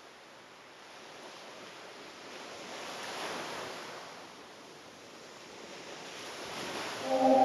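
Small waves washing up onto a sandy beach: a steady hiss of surf that swells twice, about three seconds in and again near six seconds. Organ-like music comes in loudly just before the end.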